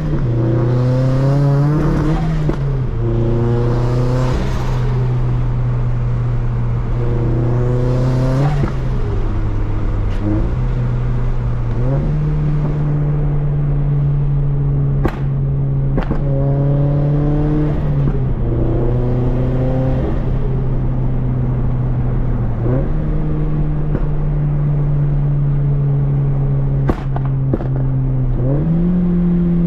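Turbocharged Scion FR-S flat-four engine running through a Tomei 80R cat-back exhaust, rising in pitch as it accelerates and dropping back at each gear change, over and over. A few sharp pops stand out, two near the middle and one near the end.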